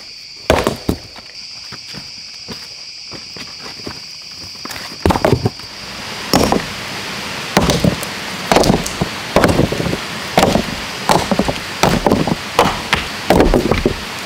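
Repeated chopping blows from a hand tool, a single strike near the start, then from about five seconds in a steady run of about two strikes a second. A high insect drone runs under the first half.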